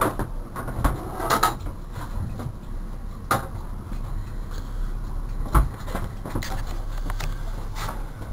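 Scattered knocks and clatter of fishing gear and bodies against a boat, over a steady low rumble. The sharpest knocks come about a second in, a little after that, and twice more later.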